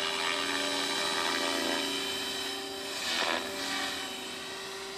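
Protos 500 electric RC helicopter in flight: the steady whine of the motor and gears with rotor blade noise, swelling louder briefly about three seconds in.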